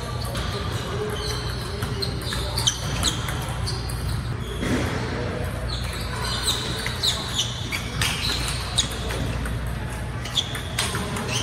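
Table tennis ball struck back and forth in a rally, sharp irregular clicks of ball on paddle and table that ring briefly in a large gym hall.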